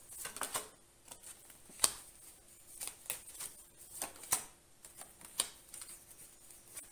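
Oracle cards being handled, drawn from the deck and laid down on a cloth-covered table: a scatter of light card snaps and flicks, the sharpest about two seconds in.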